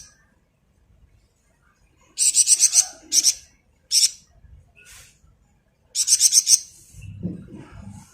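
Flamboyan songbird trilling in short rapid rattling bursts, four in all, the first and last longest, with a faint low rumble near the end.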